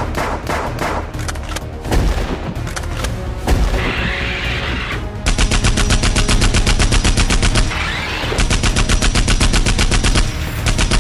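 Two bursts of rapid machine-gun fire, about two and a half and two seconds long with a short break between, laid over background music, standing for the Nerf Terrascout robot blaster shooting. A hissing whoosh comes shortly before the first burst.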